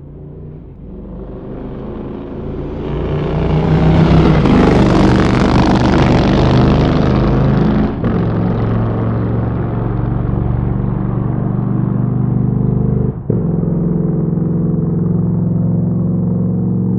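Motorcycle engine growing louder over the first few seconds, then running steadily, with two brief dips in level partway through.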